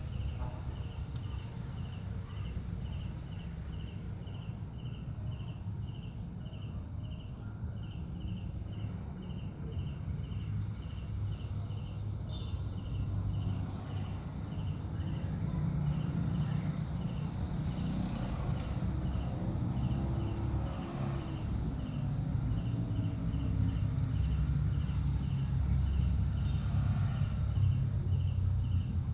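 Insects chirping in a steady, even rhythm of about two chirps a second over a constant high drone, with a low rumble underneath that gets louder in the second half.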